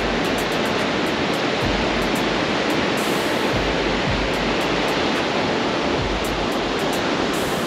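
Steady wash of surf breaking on an ocean beach, with occasional low wind bumps on the microphone.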